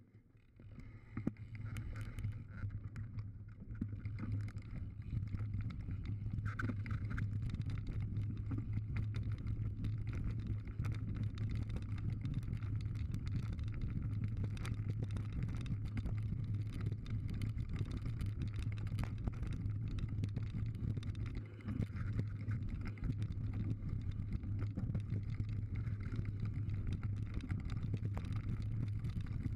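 Mountain bike riding fast down a dirt trail, heard from a camera mounted on the bike: a steady low rumble of knobby tyres and wind, with frequent small clicks and rattles from the trail surface. The rumble builds over the first few seconds and then holds steady.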